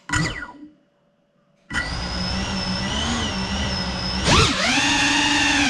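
Small FPV quadcopter's electric motors: a brief spin-up that winds down with a falling pitch, then about two seconds in the motors throttle up sharply into a steady, wavering whine. Near the end the pitch dips and surges again as the throttle is pushed.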